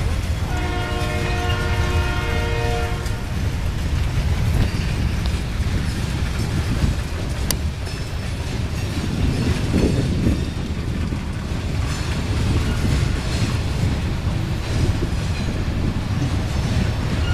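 Freight cars loaded with steel coils rolling past with a steady low rumble of wheels on rail. A multi-note horn chord sounds for about two and a half seconds near the start and starts again right at the end. There is a single sharp click about seven seconds in.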